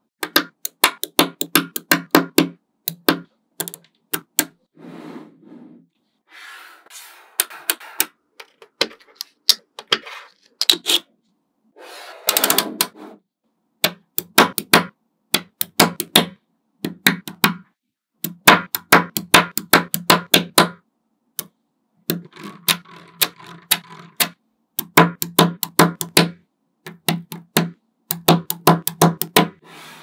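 Small magnetic balls clicking and snapping together as rows and blocks of them are pressed into place, in bursts of rapid sharp clicks separated by short pauses.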